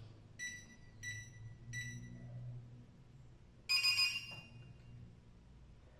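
MAADOK X1 smart lock beeping while a fingerprint is enrolled: three short, evenly spaced beeps as the finger is read, then a louder, longer beep about two seconds later, which means the fingerprint has been registered.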